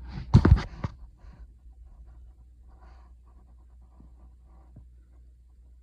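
Small plastic toy monkeys handled and clicking against each other: a quick cluster of sharp clicks in the first second, then faint scattered clicks and rustling.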